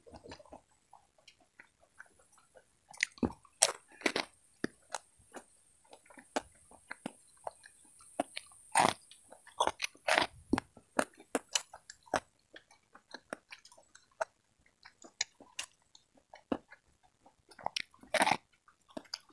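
Eating corn on the cob: kernels bitten off and chewed with irregular sharp crunches, the loudest bunched a few seconds in, around the middle and near the end.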